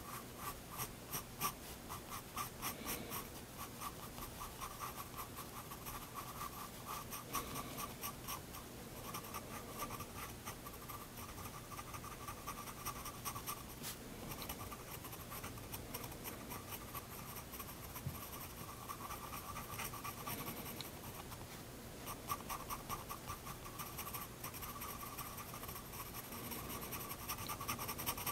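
Prismacolor Turquoise 7B graphite pencil scratching on sketchbook paper in quick, short strokes as it draws and fills a tiny circle, with brief pauses between runs of strokes.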